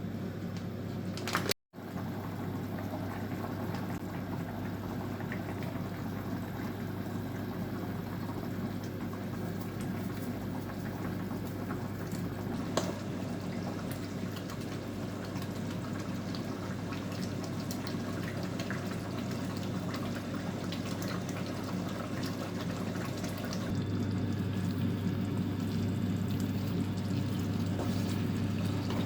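Kitchen cooking sounds: liquid sloshing and bubbling over a steady low hum, with small clicks now and then. The hum gets a little louder near the end.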